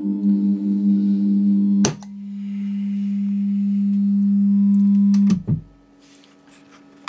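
Electronic synthesizer oscillators sounding a low drone. At first two steady tones beat against each other with sweeping overtones. After a click about two seconds in, a single steady tone slowly swells in volume, then clicks cut it off about five seconds in, leaving a faint lingering tone.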